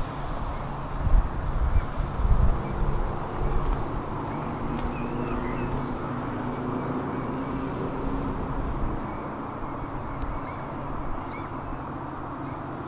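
Small birds giving many short, high chirps over a steady low outdoor rumble, with a few heavier low bumps in the first three seconds.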